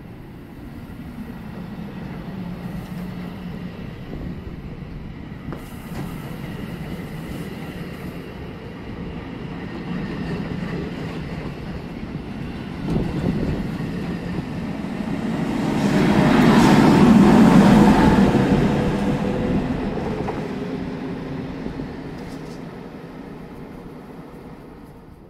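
New Jersey Transit passenger train passing. Its rumble and wheel noise build to their loudest about two-thirds of the way through, then fade away.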